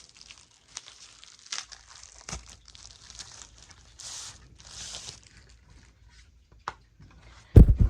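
Packaging crinkling and rustling as it is handled and pulled off, with scattered light clicks. A heavy thump near the end.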